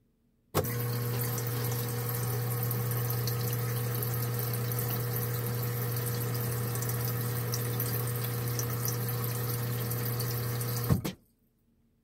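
Refrigerator's auto-fill water pitcher being filled from the fridge's water line: water running in steadily with a low steady hum. It starts abruptly with a click about half a second in and cuts off with a click near the end.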